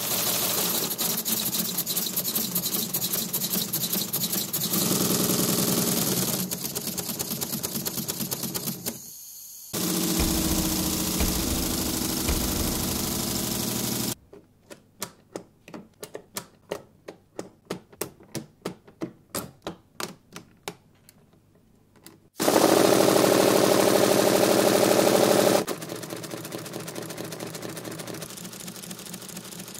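Lego pneumatic engines running on compressed air: a fast, loud mechanical clatter of pistons and valves, in several separate runs that start and stop abruptly. In the middle stretch the strokes come singly, about two a second.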